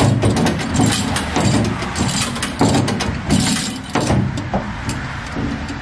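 Hand-cranked come-along winch being worked, its ratchet clicking in irregular runs as the cable pulls a milling machine on a pallet jack up onto a trailer. A low steady rumble runs underneath.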